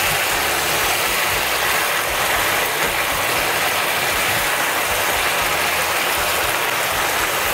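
Sweet-and-sour tamarind, soybean and ginger sauce sizzling and bubbling hard in a hot pan around two fried fish, a loud, steady, dense crackling hiss.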